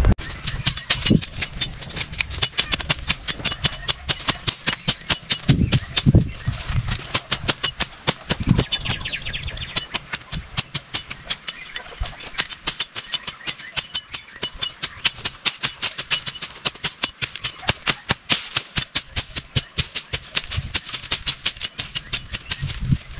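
A rapid, regular run of sharp chopping strikes, about four a second, as a hand blade slashes and chops through weeds and brush to clear ground.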